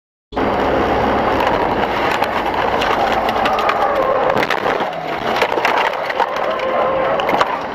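Car crash heard from the dashcam inside the car: continuous loud crunching and crackling with many sharp cracks, starting suddenly and cutting off near the end.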